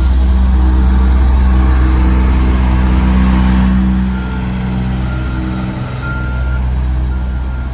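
Heavy engine running with a loud, steady low drone that eases off about four seconds in; from then on a reversing alarm beeps repeatedly, about once a second.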